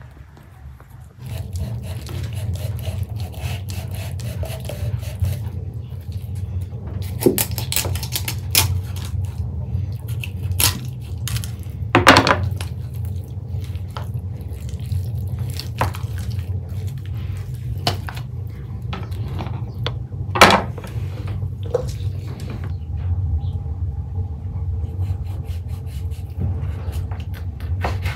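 A steady low rumble, with scattered clicks and knocks on top, two of them louder than the rest.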